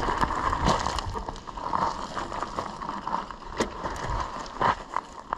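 Mountain bike rolling over a loose, rocky gravel trail: tyres crunching on stones and the bike rattling. The noise is louder in the first second, then eases, with a few sharp knocks from rocks about a second in and near the end.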